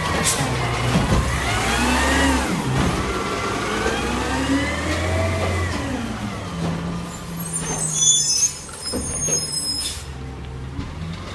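Automated side-loader garbage truck working its hydraulic arm: the engine runs up under load and the hydraulic whine rises and falls in pitch as the arm lifts and empties a recycling cart. A burst of hissing follows about seven seconds in.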